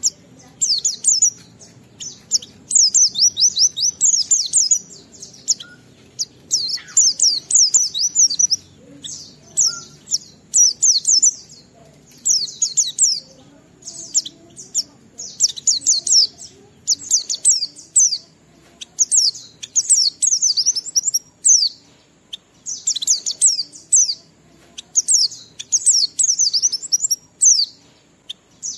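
White-eye (pleci) singing its long, continuous ngalas song: rapid runs of high-pitched falling chirps in bursts of a second or two, with short pauses between.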